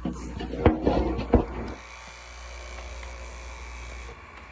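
A few sharp clicks and knocks as the bench chain grinder is handled and set up, then a steady high-pitched whir of its small electric motor and wheel spinning, which cuts off shortly before the end.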